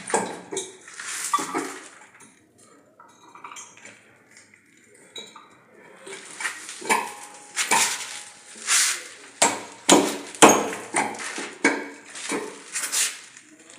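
Irregular clinks and knocks of a hand-wash basin against its metal wall hooks and GI pipe as it is worked into place, some strikes with a short ring.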